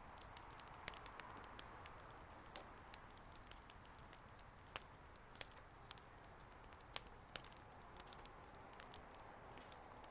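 Bonfire crackling: irregular sharp pops and snaps over a faint steady hiss, with a few louder pops in the middle.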